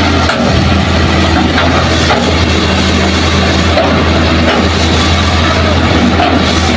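Diesel engines of a Hitachi tracked excavator and a dump truck running steadily at close range, a loud deep hum with no change in level.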